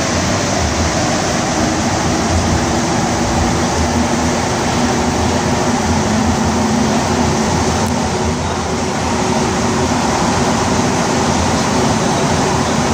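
Inside a Montreal Metro AZUR rubber-tyred train running at speed through the tunnel: a steady, loud rolling rumble with a low, even hum.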